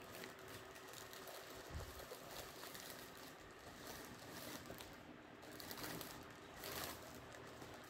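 Faint rustling and crinkling of a clear plastic gift bag as a basket is slid into it, in scattered soft crackles.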